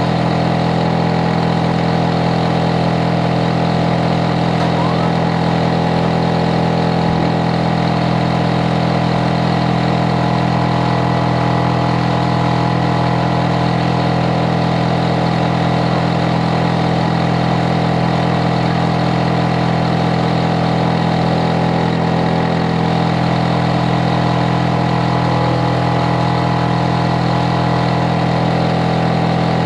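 Hitachi air-conditioner outdoor unit running steadily: a loud, even hum from the compressor and fan, with several fixed droning tones. It is loud enough to be a noise nuisance.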